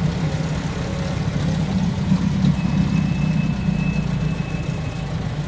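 Volkswagen Kombi van's engine running steadily while driving, heard from inside the cabin as a low, even hum over road noise. A faint high whine comes in for a couple of seconds in the middle.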